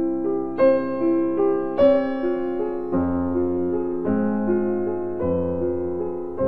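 Background piano music: an evenly paced melody of single notes over chords that change about once a second.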